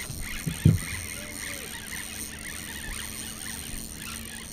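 Two short, dull low thumps about a quarter second apart, around half a second in, over a steady outdoor background hiss.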